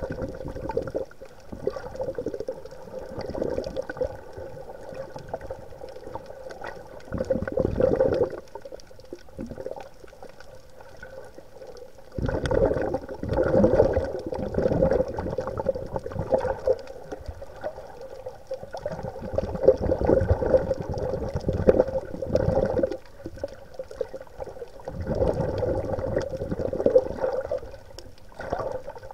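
Water sloshing and gurgling in irregular surges a few seconds long, over a faint steady hum.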